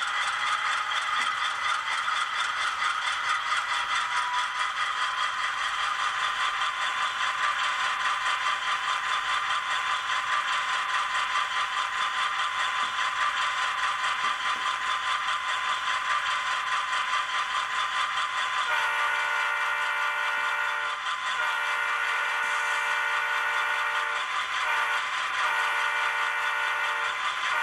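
Sound-decoder recording of a GE Dash 9 diesel prime mover running, played through the small speaker of a Scaletrains HO scale model with a LokSound V5 decoder. About two-thirds of the way in, the model's multi-chime horn blows long, long, short, long: the grade-crossing signal.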